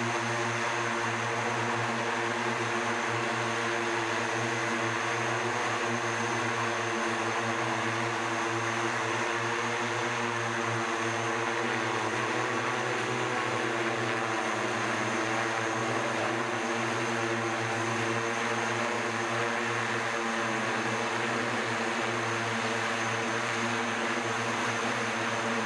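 SkyDrive SD-03 eVTOL hovering on its electric-driven propellers: a steady hum of several rotor tones over a rushing hiss of air. The tones waver slightly about halfway through.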